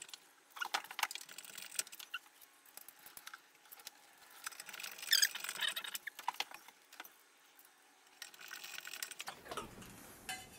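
Faint clicks, taps and scrapes of a handheld screwdriver driving small screws into a ceiling fan's metal housing, with a brief, louder squeaky scrape about five seconds in.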